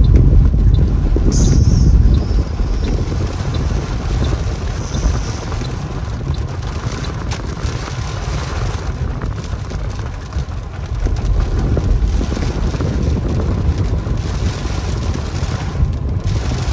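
Heavy rain on a moving car's roof and windshield, heard from inside the cabin over a steady low road and engine rumble.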